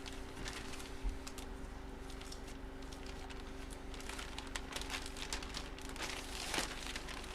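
Faint rustling and light clicks of trading-card packaging being handled, over a steady low electrical hum.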